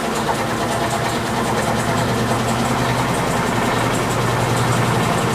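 Electrolux LT15F washing machine in its spin cycle: a steady motor hum with a constant drone, running quieter now that foam padding keeps the drain hose from knocking against the cabinet, which the owner found to be the cause of the loud spin noise.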